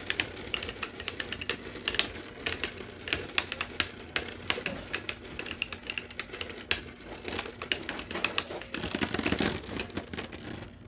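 3D-printed Beyblade Burst tops spinning and clashing in a stadium: a rapid, uneven run of sharp plastic clicks and clacks, with a denser scraping stretch near the end.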